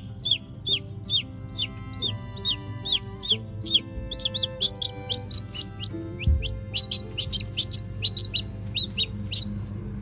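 Newly hatched chick peeping loudly and insistently: a steady string of short, high peeps, about two to three a second, with brief pauses, over background music.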